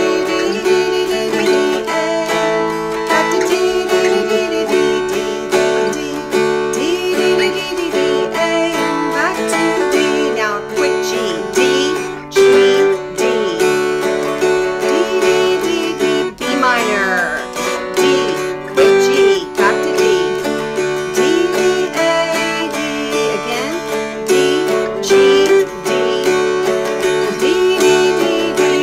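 Two mountain dulcimers strummed together, a steady drone ringing under the fretted melody of an old-time tune, with a few sliding notes.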